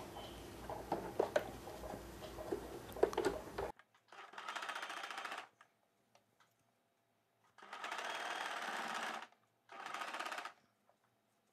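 Electric sewing machine stitching in three short runs of one to two seconds each, stopping between them, while a blouse neckline is sewn. The first few seconds hold only light clicks and knocks of the fabric being handled at the machine.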